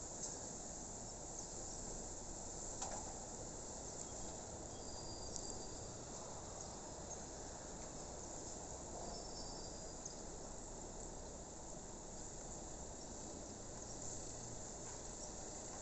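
Crickets chirring in a steady, unbroken high drone, with a few brief high chirps and a single click.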